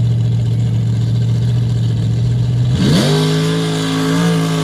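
Mud-race buggy's engine held at steady revs on the start line, then revving sharply about three seconds in as the buggy launches and holding at high revs. A rush of noise from the tyres throwing dirt comes in with the launch.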